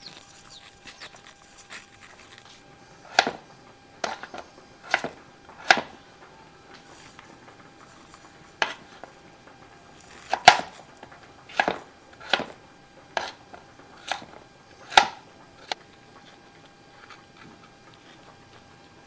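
A kitchen knife cutting through raw potato onto a cutting board, a dozen or so sharp knocks roughly a second apart, with a pause of a few seconds midway; they stop a few seconds before the end.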